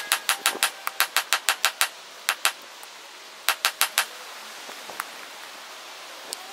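Hammer blows on a glowing billet of wrought iron and 1084 high carbon steel on an anvil. A fast, even run of about six blows a second for the first two seconds, then a few scattered blows in a pair and a group of four. A last single blow comes about five seconds in.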